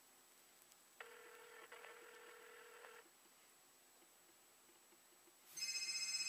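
Ringback tone over the HTC EVO 4G's speakerphone: one two-second ring about a second in. Near the end a second phone's electronic ringtone starts, much louder.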